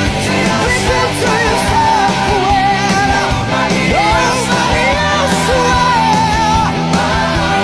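Loud rock music playing steadily, with a lead melody line that glides up and down.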